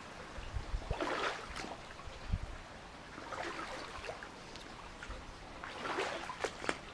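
Mountain stream running and gurgling over rocks, with a few brief splashes.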